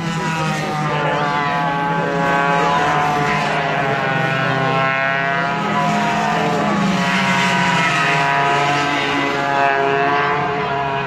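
Engines of racing go-karts running on the track, several overlapping engine notes rising and falling in pitch as the karts accelerate and slow.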